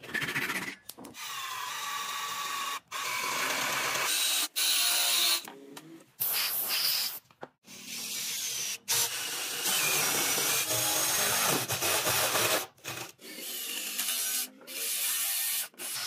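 Short woodworking clips cut one after another: a handsaw cutting a wooden knob, then a cordless drill running in spurts, boring with a spade bit and driving a screw into wood. The drill's whine rises and falls in pitch, and each clip breaks off abruptly.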